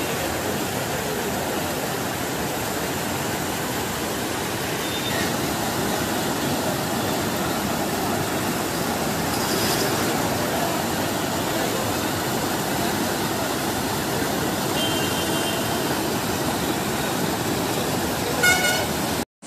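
Floodwater rushing and churning as it pours around a concrete pipe lying across a flooded street, a steady loud rush. A vehicle horn toots briefly near the end, with fainter horn notes a few seconds before.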